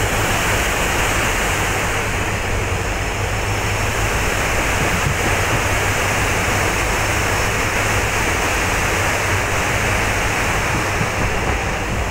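Steady rushing noise with a low rumble underneath: a train running across the barrage, mixed with floodwater pouring through the sluice gates below.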